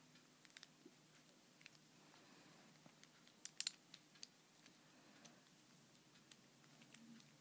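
Near silence with a few faint, scattered clicks and taps of small plastic and metal spinning-top parts being handled, the loudest a quick cluster about halfway through.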